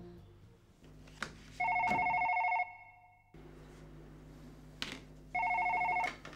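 Desk telephone's electronic ringer trilling twice, each ring about a second long with a pause of roughly three seconds between: an incoming call.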